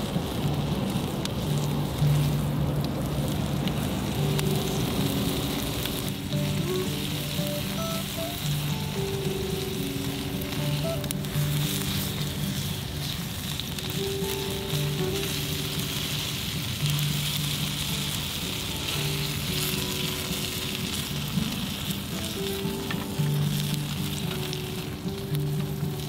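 A one-pound steak sizzling steadily on an iron griddle plate, under slow background music of long held low notes.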